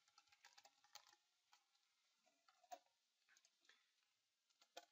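Faint typing on a computer keyboard: scattered, irregular keystroke clicks, most in the first second and a few more near the end.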